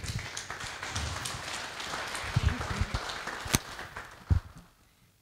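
Audience applauding, dying away near the end, with a few low knocks mixed in.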